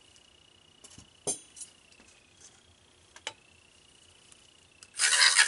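A few light clicks and knocks of plastic cups being handled over a faint steady high whine, then near the end a handheld battery mini mixer starts loudly, whirring as it stirs black colorant in a small cup.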